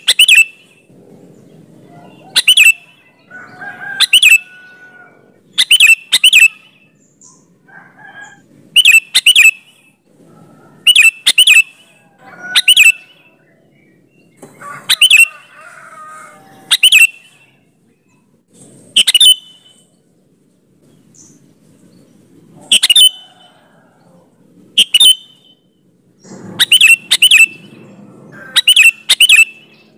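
Sooty-headed bulbul (kutilang) calling loudly in short, clipped-sounding phrases, one or two quick notes at a time, repeated about every two seconds.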